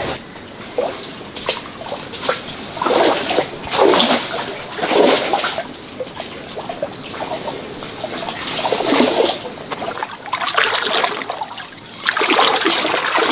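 Water splashing and trickling in a shallow stream, in uneven bursts of splashes, the heaviest about three to five seconds in and again near the end.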